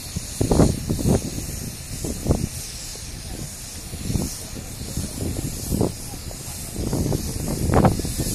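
Wind blowing across the microphone in irregular gusts over a steady hiss, the gusts coming thicker near the end.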